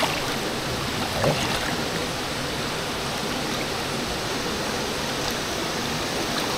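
A swollen, muddy river after heavy rain, rushing steadily over rocks with an even hiss.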